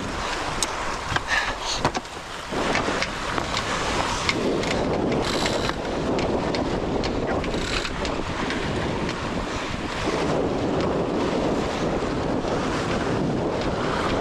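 Wind buffeting the microphone over the steady rush of water along the hull of a C&C 27 sailboat under sail, with a few sharp clicks in the first couple of seconds.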